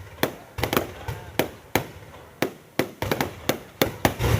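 Fireworks going off: over a dozen sharp bangs at irregular spacing, some coming in quick clusters of two or three.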